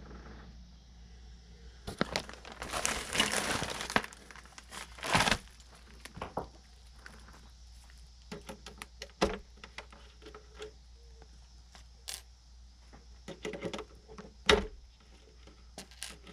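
Packaging wrap crinkling and tearing as an RC car is unboxed, in a dense burst about two to four seconds in and a shorter one a second later. Scattered light clicks and taps of handling follow.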